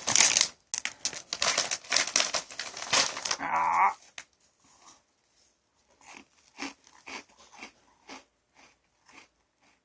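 A plastic snack bag crinkling loudly as it is handled, for about the first four seconds, with a brief vocal sound near the end of that. After that, only faint soft ticks about twice a second.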